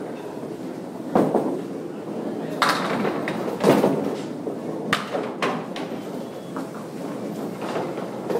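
Candlepin bowling alley: a steady rumble of balls rolling on the lanes, with about five sharp knocks and clatters of balls hitting the small pins in the first two-thirds.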